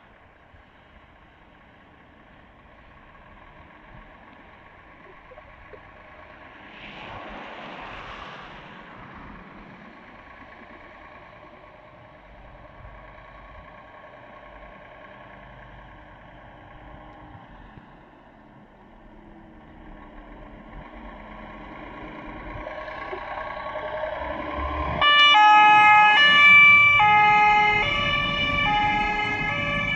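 Fire engine pulling out, its engine growing louder as it approaches, with a short hiss about seven seconds in. About five seconds before the end its emergency siren starts, stepping between alternating tones, and is the loudest sound.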